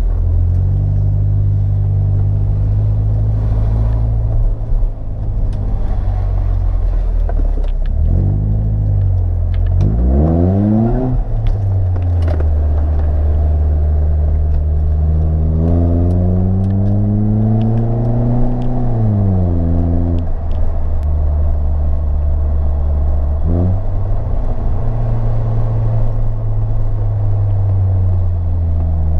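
Mercedes-Benz SLK R170 engine with an aftermarket exhaust, heard from inside the cabin while pulling away at low speed. The revs climb and fall back several times as the automatic gearbox changes up.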